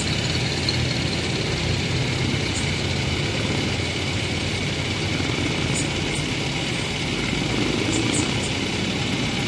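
Steady street traffic on wet pavement: car engines running and idling, with tyres hissing on the wet road.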